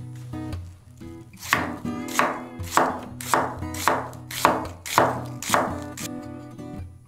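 A chef's knife slices through half an onion and knocks onto an end-grain wooden cutting board: about eight even strokes, a little over half a second apart, starting about a second and a half in.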